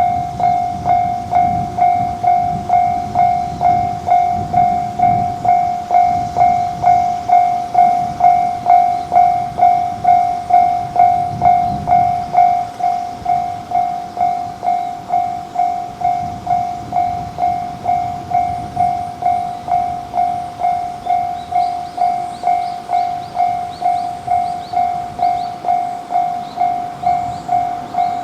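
Japanese railway level-crossing warning bell ringing steadily at about two strikes a second, each strike a single pitched tone that decays before the next. A train rumbles by underneath through roughly the first half.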